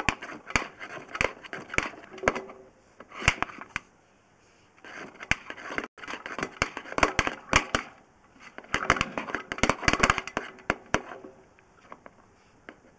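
Rapid, irregular clicking and rattling as a drain-inspection camera's push rod is fed along a sewer pipe, coming in bursts with a couple of short pauses.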